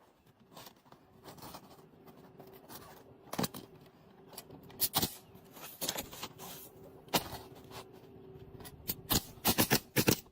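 Shingles being laid and fastened on a roof: scattered irregular knocks, taps and scrapes, coming more often near the end, over a faint steady hum.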